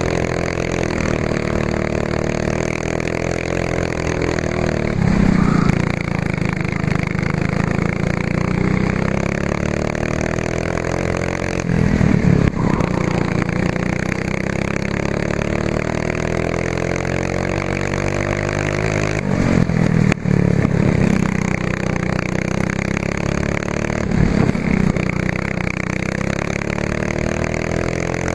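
Racing kart engine heard from a camera mounted on the kart, running at full throttle with the revs climbing steadily along the straights and dropping sharply under braking four times, with rattling from the kart chassis.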